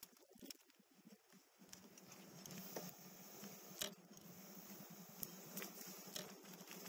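Faint, muffled sound of a motorcycle being ridden: a steady low engine hum with rushing noise that comes in about two seconds in and holds, with scattered small clicks and knocks.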